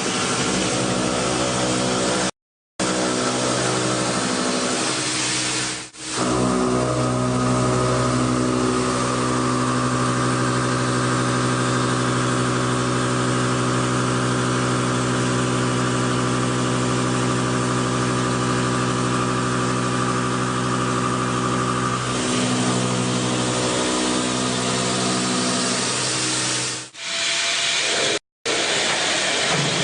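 A machine running with a steady, loud hum over a hiss, heard in several stretches that are cut off abruptly.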